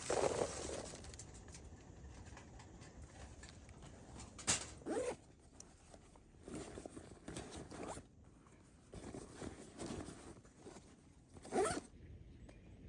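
A zipper being pulled in a series of short rasping strokes with pauses between, the loudest at the start, about four to five seconds in, and near the end.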